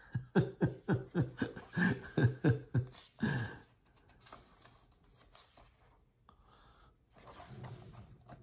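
A man laughing in a run of short, breathy chuckles, about three a second, for three seconds or so. Then the pages of a large hardback book are turned and smoothed flat, with a soft paper rustle near the end.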